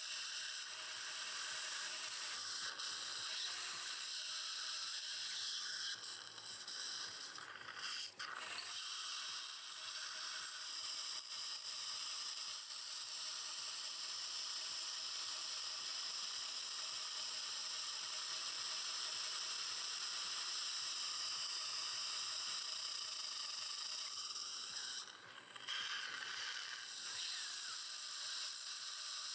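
Piezoelectric bone-surgery handpiece cutting a lateral window into the upper jawbone for a sinus lift: a steady high hiss with several steady high tones, pausing briefly about eight seconds in and again near the end.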